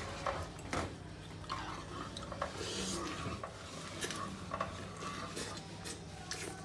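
Scattered clicks and knocks of kitchen utensils against dishes and pots, over a low steady hum.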